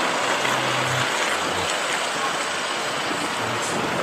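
Street traffic with a red double-decker bus driving past: a steady rushing noise of engines and tyres on the road.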